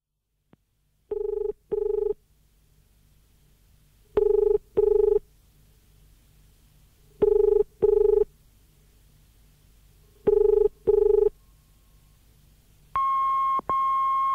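Telephone ringback tone in the double-ring pattern, ring-ring, heard four times about three seconds apart as a call rings out. Near the end come two longer, higher-pitched steady beeps.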